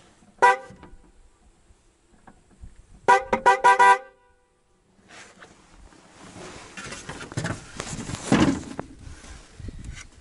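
A pair of cheap aftermarket dual snail-type car horns sounds a short beep, then a quick run of about five toots. They are running on battery power with the engine off, which the owner expects makes them quieter than they would be with the engine running. A stretch of rustling follows.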